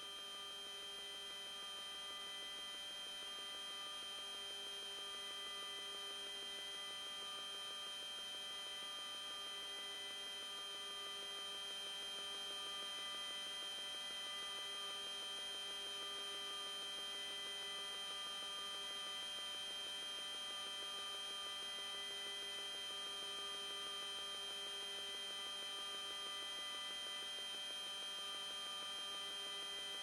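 Steady electrical hum with several constant high tones on the shuttle's downlink audio, with no voice traffic while the air-to-ground link is lost during a TDRS satellite handover.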